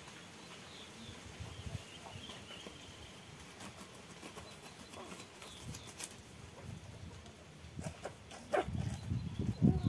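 A chicken being slaughtered, flapping and thrashing against the dirt ground in irregular bursts, heaviest in the last second or so.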